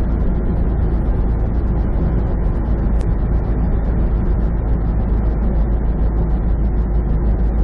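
Steady in-cab noise of a semi truck driving at highway speed: a low engine drone under tyre and road noise on a snow-covered lane. A single sharp click sounds about three seconds in.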